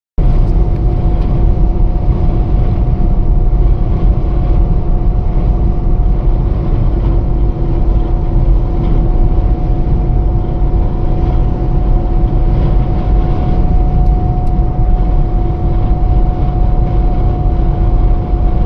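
High wind buffeting a vehicle as a loud, steady low rumble, with a constant whistling tone held throughout.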